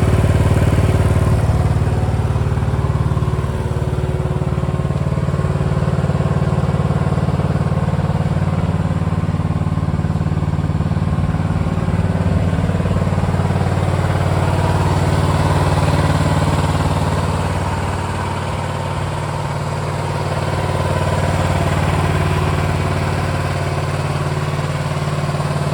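Engine of a C360 crawler skid steer loader running steadily, with a brief dip in level about two-thirds of the way through.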